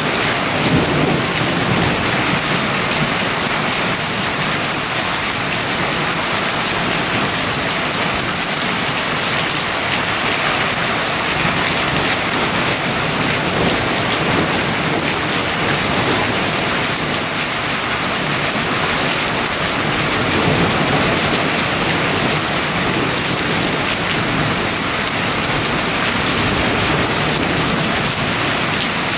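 Heavy rain falling steadily during a thunderstorm: an even, unbroken hiss with no distinct claps.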